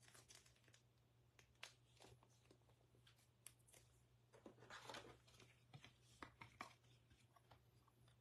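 Near silence with faint, scattered clicks and rustles of trading cards being handled, over a low steady hum.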